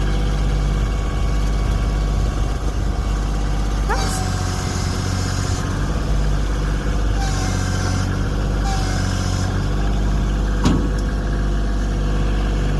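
Bobcat CT2025 compact tractor engine running steadily, with a couple of brief high squeaks and some intermittent hiss over it.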